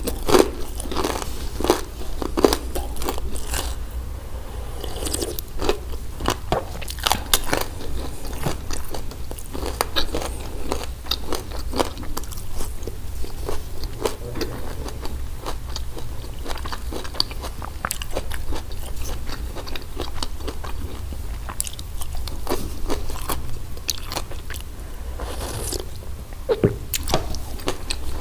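Close-miked biting and chewing of a crispy hawawshi, a baked flatbread stuffed with spiced minced meat. Crisp bites sound near the start, then steady chewing full of small crunches and crackles.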